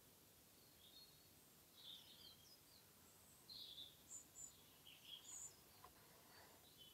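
Near silence with faint, scattered bird chirps: short high notes and little falling sweeps coming every second or so.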